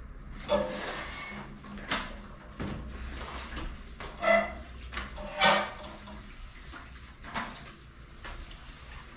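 Rubber floor squeegees pushing water across wet ceramic tiles: a series of wet swishing scrapes, the two loudest about halfway through with a short squeak to them.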